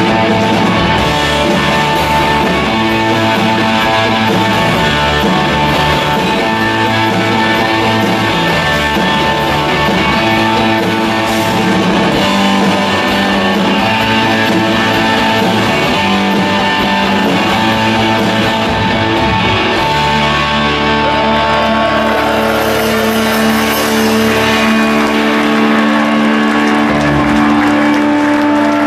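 Live rock band playing an instrumental passage with electric guitars, no singing; the low end drops away near the end, leaving held guitar notes.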